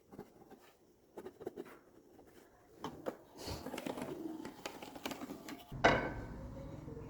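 Scattered light taps and scrapes of objects being handled, with one sharper knock about six seconds in; a low steady hum starts just before the knock.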